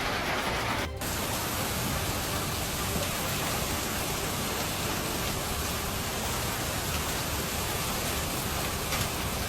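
Heavy storm downpour of rain and hail falling hard, a steady dense hiss, with a brief break about a second in.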